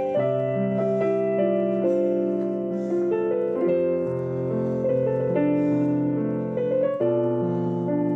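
Background piano music, held notes and chords changing about once a second.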